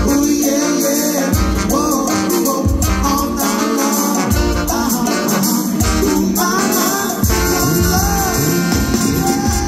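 Live band music: a singer over electric guitar, horns, drums and congas, in a Latin and ska-tinged groove.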